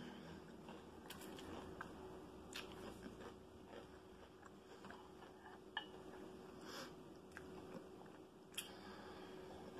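Faint close-up chewing of fried fish fillet, with a few sharp wet mouth clicks along the way and a faint steady hum underneath.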